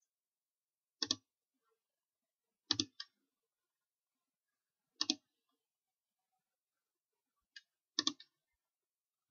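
Sharp clicks in short clusters of two or three, coming about every two to three seconds, five times in all, with quiet in between.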